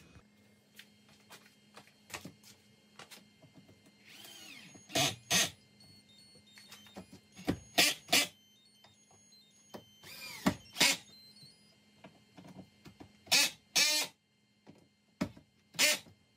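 Festool cordless drill-driver driving screws into the wall in short trigger bursts, mostly in pairs about half a second apart, the motor's pitch rising and falling with each burst.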